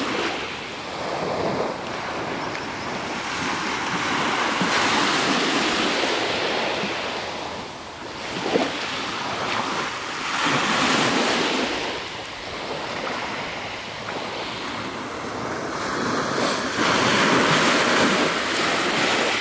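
Small waves breaking on a pebble beach and washing over the stones, the hiss swelling and ebbing every few seconds, with one sharp click about halfway through.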